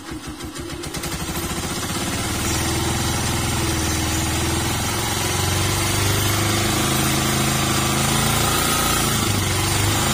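Honda TMX 125 Alpha's single-cylinder four-stroke engine idling, then brought up to a higher steady speed about two seconds in and held there. It runs smoothly, without the valve ticking it had before its tappets were adjusted.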